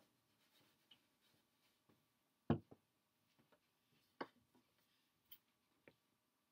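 Near silence: small-room tone broken by a handful of faint, short clicks and taps, the loudest about two and a half seconds in.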